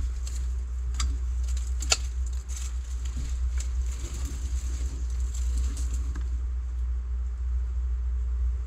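Leafy branches rustling and twigs snapping as hands pull and bend them, with sharp snaps at the start and about one and two seconds in, over a steady low rumble.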